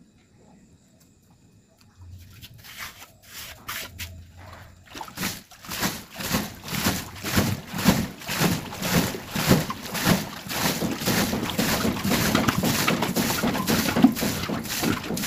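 Muddy water splashing and spurting from a hand-bored tube-well pipe as a worker pumps at it by hand, in an even rhythm of about two to three strokes a second. It starts softly about two seconds in and grows louder from about five seconds.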